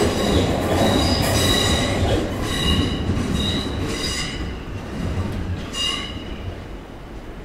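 Electric passenger train running through the station, its wheels squealing in repeated high-pitched bursts on the curved track over a low rumble. The sound fades steadily as the train draws away.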